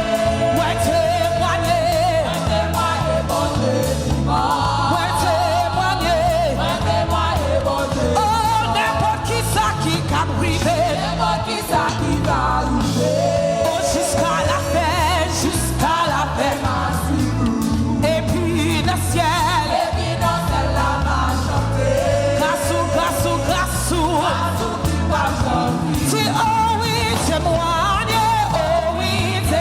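Gospel worship song: singers lead a melody over a band with a strong bass line and steady drums.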